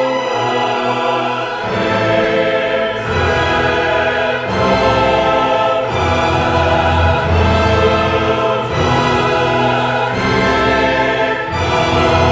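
Orchestral music with a choir, dramatic and operatic in style, with sustained chords that change every second or two and a heavy bass entering about two seconds in.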